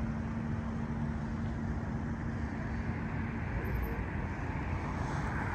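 Road traffic noise: vehicles running steadily, with a low hum that stops about three and a half seconds in. A car passes on the road near the end.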